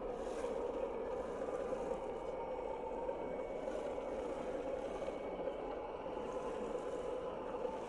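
Electric motors and gear drivetrains of 1/10-scale RC crawler trucks running steadily, an even whine that holds its pitch, as the trucks crawl through sticky mud.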